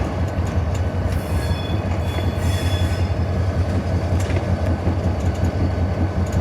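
EMD SD40-2 diesel locomotive's 16-cylinder 645 engine running at low throttle, heard from inside the cab as a steady low drone, with a few faint clicks from the wheels on the track.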